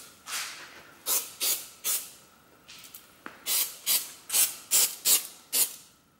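Aerosol spray can giving about ten short squirts onto a scooter's rear shock absorber, each a brief high hiss, roughly two a second, with a short pause in the middle.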